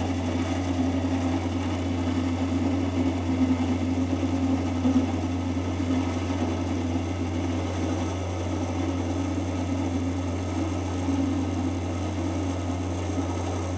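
Small lathe motor running steadily, with the scraping of a hand-held chisel taking fine cuts off a spinning blank of hardened steel.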